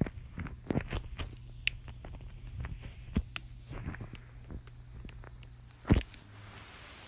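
Joints being cracked: an irregular run of sharp pops and clicks, with one loud, deeper pop about six seconds in.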